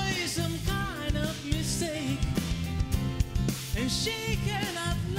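A live rock band playing a slow song: acoustic-electric guitar, drums and bass, with a wavering, sliding melody line on top.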